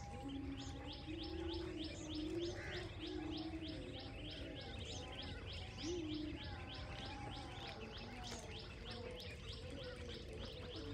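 Muscovy ducklings peeping: an even run of high, falling peeps at about four a second, with a lower wavering call in the first few seconds and again about six seconds in.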